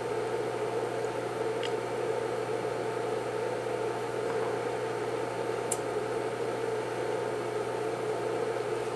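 Dayton 1/2 hp single-phase induction motor running steadily on a pure sine wave inverter's output, a smooth, even hum and whir.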